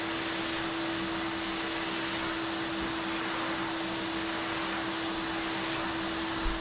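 An electric vacuum or blower motor running steadily, with a constant hum under the rush of air.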